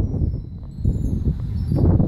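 Continuous low rumbling of thunder from a storm overhead, easing briefly about half a second in, with wind chimes tinkling faintly.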